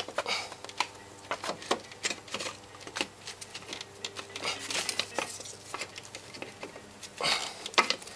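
Irregular clicks, light knocks and rustling of rubber hoses and metal fittings being handled and worked loose by gloved hands on a motorcycle engine's top end, with a louder knock a little before the end.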